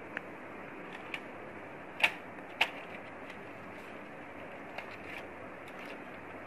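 Clicks and clacks of hard parts being handled inside an opened projector as its inner cover plate is lifted out, the loudest two sharp clacks about two seconds in, over a steady hiss.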